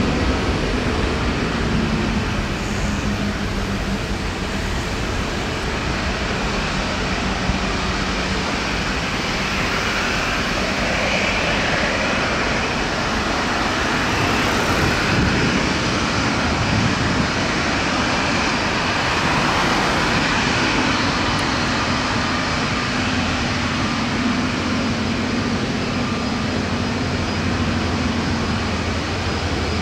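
Airbus A321neo's CFM LEAP-1A turbofans running steadily at low taxi power as the airliner turns onto the runway and lines up. The sound is a continuous jet whoosh with a low hum that grows stronger in the second half.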